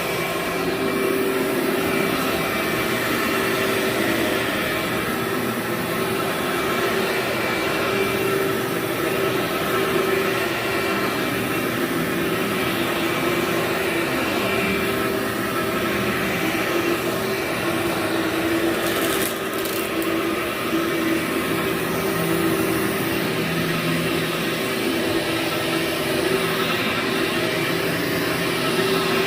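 Vacuum cleaner running steadily over dirty carpet, a constant motor whine over the rush of suction, with a brief high rattle about two-thirds of the way through.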